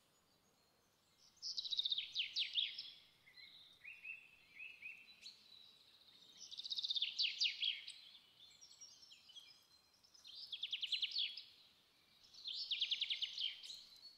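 Birdsong: four runs of rapid trilled chirping, with smaller chirps between them.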